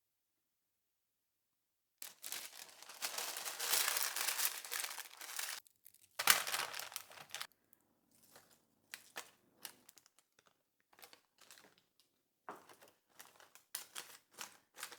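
Crinkling and rustling of something thin being handled in the kitchen: a long stretch about two seconds in, a second shorter burst, then scattered light rustles and clicks.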